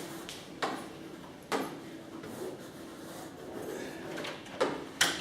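Taps and short scrapes of a pen or chalk on a board as a circuit diagram is drawn, with a few sharp knocks spaced irregularly over a quiet room.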